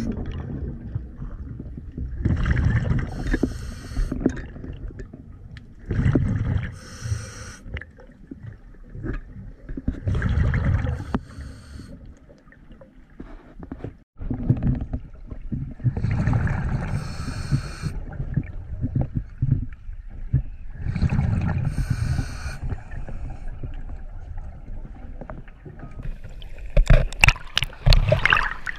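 Scuba diver's exhaled bubbles from the regulator rumbling and gurgling past an underwater camera, in bursts every four to five seconds with each breath out. Near the end, water sloshing and splashing around the camera at the surface.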